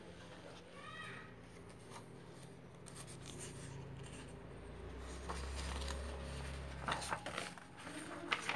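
Faint paper handling: sheets being rubbed and shifted, with a few crisp rustles near the end as a new sheet is laid under the camera.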